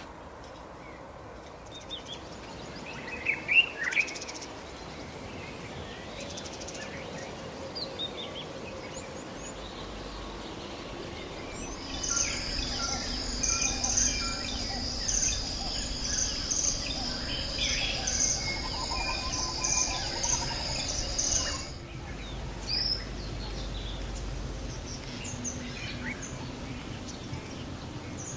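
Birds chirping and calling in short scattered notes, with a steady high-pitched pulsing trill running for about ten seconds in the middle that cuts off suddenly.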